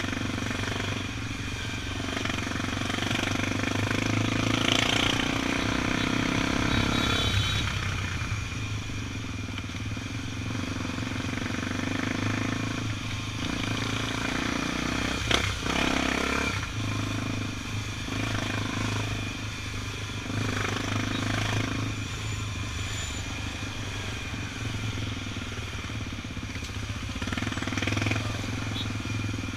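Honda XR 250 Tornado's single-cylinder four-stroke engine running under way, its note rising and falling with the throttle. There is one sharp knock about halfway through.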